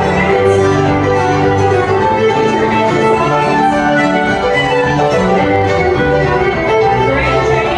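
Fiddle music with guitar accompaniment, playing continuously at a steady level.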